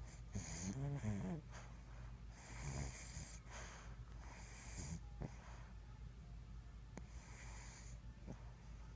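Snoring, a breath every two to three seconds. The loudest, about a second in, has a pitched rasp that rises and falls; the later breaths are softer and more wheezy.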